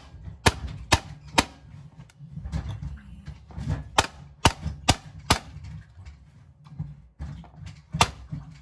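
A stone pestle pounding boiled jengkol beans flat on a plastic cutting board, making sharp knocks. The knocks come in quick groups: three in the first second and a half, four a few seconds in, and one more near the end.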